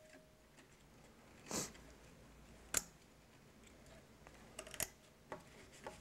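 Faint handling sounds of buffered optical fibers being routed through plastic slack management clips on a fiber tray: a soft rustle about a second and a half in, a sharper click near three seconds, and a few small clicks near the end.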